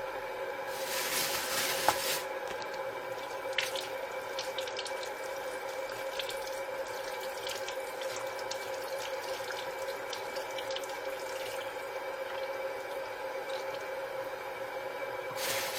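Water running and splashing, louder for about a second and a half near the start, over a steady hum.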